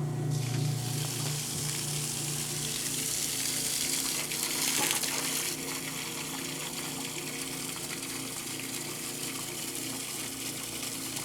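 Kenmore top-loading washing machine's motor and drain pump running steadily with water gushing out as it pumps out, now that the faulty lid switch is bypassed. The water rush swells for a moment about four seconds in.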